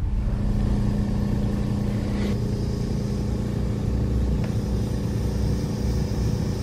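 Battery-powered TrackMaster toy train engine running along its track, its small electric motor and gears making a steady hum, with a faint click about two seconds in and another past four.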